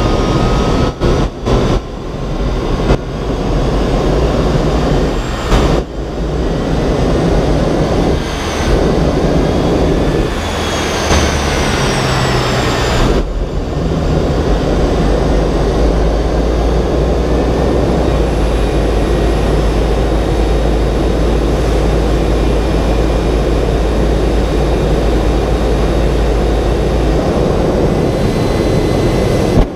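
Jet turbine engine of a jet-powered semi truck running, a loud steady rushing roar heard from an onboard camera, with a faint high whine that glides in pitch near the middle and a deep rumble that builds from about halfway through.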